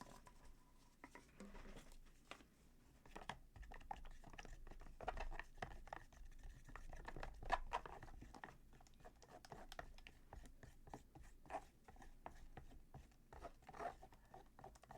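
A stick stirring and scraping through tinted wet plaster: faint, irregular scrapes and small clicks as the colour is blended in.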